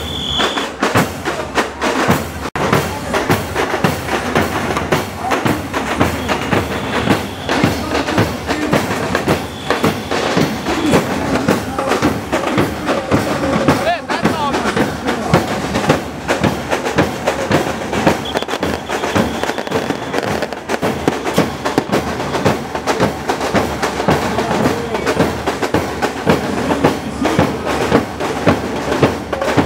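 Marching band percussion playing a steady march beat: massed bass drums and snare drums with clashing hand cymbals.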